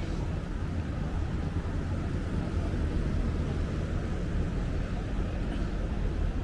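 Steady low rumble of city background noise, with no distinct events.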